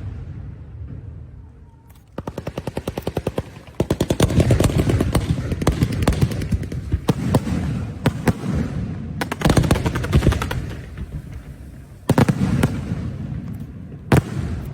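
Fireworks and strings of firecrackers going off in rapid volleys of bangs. A quick even run of cracks comes about two seconds in, then dense crackling, and a single sharp bang near the end.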